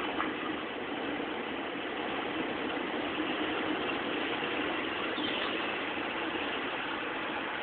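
Steady city street background noise: a continuous mechanical hum, like an idling engine or traffic, with no distinct events.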